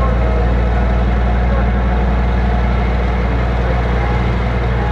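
A vehicle engine running steadily, a constant low hum with no change in pitch or level.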